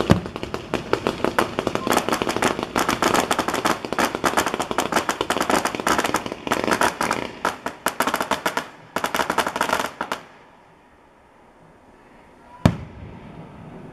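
Rapid-fire fireworks barrage: a dense run of crackling pops and bangs for about ten seconds that stops abruptly, then, after a short lull, a single loud aerial shell burst near the end.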